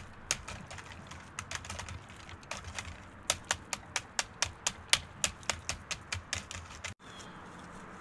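Quick, crisp ASMR tapping close to the microphone, about three or four taps a second, which stops abruptly about seven seconds in. A faint steady hiss follows.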